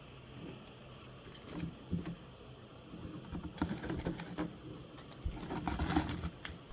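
Cardboard and plastic packaging being handled while items are taken out of a trading card box: scattered light clicks, taps and soft thumps, busier and louder in the second half.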